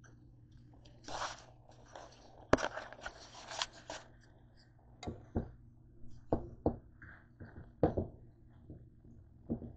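Plastic slotted spatula scraping and tapping against a non-stick frying pan as chopped pork is stirred: a run of short sharp scrapes and knocks, busiest in the first few seconds, over a low steady hum.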